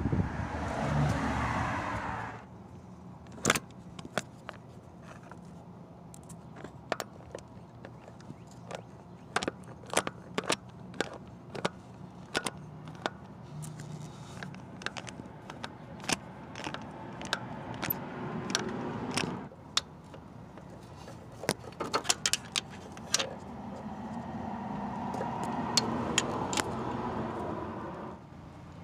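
Irregular metallic clicks and clinks of a ratcheting breaker bar, socket extensions and a universal joint working loose a starter mounting bolt. A rushing noise swells and fades at the start and again near the end.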